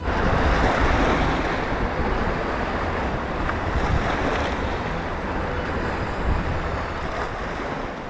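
Sea waves breaking and washing over a boulder-strewn rocky shore, a steady loud surf, with strong wind buffeting the microphone.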